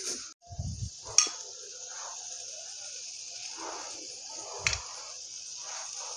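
Crushed bitter gourd peels, seeds and onion sizzling in hot oil in a pan as they are stirred with a wooden spatula, a steady hiss. A sharp knock about a second in and another near five seconds, the spatula striking the pan.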